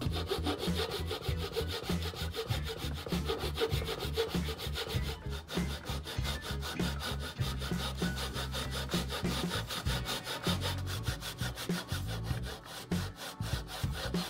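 Hand saw cutting lengthwise along a wooden dowel clamped in a steel vise, in quick, steady back-and-forth strokes.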